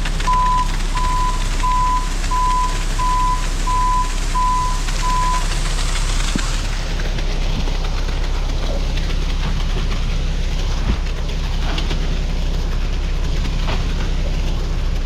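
Ready-mix concrete truck's backup alarm beeping about twice a second over its steady diesel engine rumble as it reverses. The beeping stops about five seconds in, and the engine keeps running.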